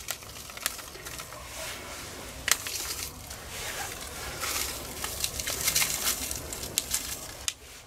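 Paper bag rustling and crinkling as sugar is spooned out of it into a stew in a cast-iron Dutch oven, with a few sharp clicks of the metal spoon and ladle against the pot.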